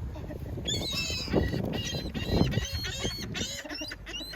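A flock of birds calling, many short high-pitched calls overlapping, starting about a second in.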